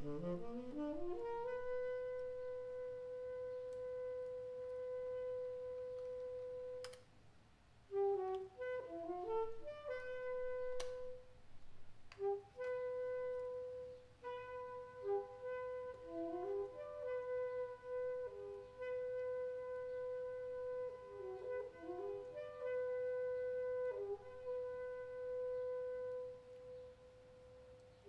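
Woodwinds of a large improvising jazz ensemble, saxophone and clarinet: one instrument holds a long steady note, breaking off and taking it up again, while others drop in short, scattered phrases around it.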